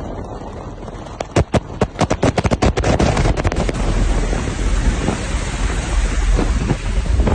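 Air rushing and buffeting inside an aircraft cabin through a door that has opened in flight, with a heavy low rumble and wind hitting the microphone. A run of sharp crackling knocks comes between about one and three and a half seconds in, after which the rushing noise is steady.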